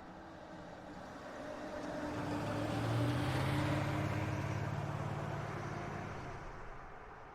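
A motor vehicle passing by: engine note and road noise swell to a peak about three seconds in, then fade away.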